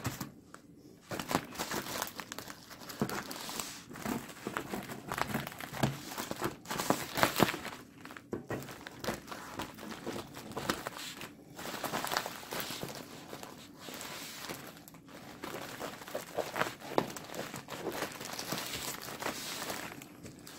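Shipping packaging being torn open and unwrapped by hand: steady crinkling and crumpling of the wrapping with bursts of tearing.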